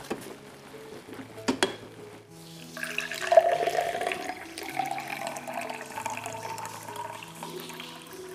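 Herbal decoction poured into a drinking glass, starting about three seconds in, the pouring tone rising in pitch as the glass fills. Two sharp clicks come before it, over soft background music.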